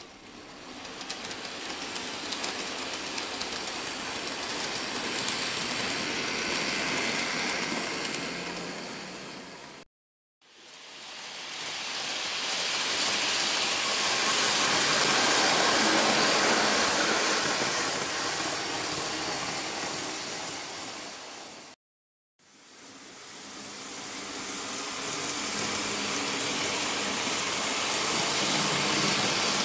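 Micro Ace N-gauge model train (JR Kyushu 813 and 811 series) running along the track, its motor and wheels making an even rushing whir that swells as the train nears and fades as it passes. Three such passes, the sound cutting off suddenly twice between them.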